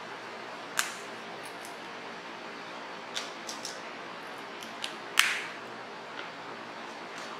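Brass snap fastener on a leather card holder clicking as it is pulled open and pressed shut. There is a sharp click about a second in and the loudest click about five seconds in, with a few lighter taps and clicks between, over a steady hiss.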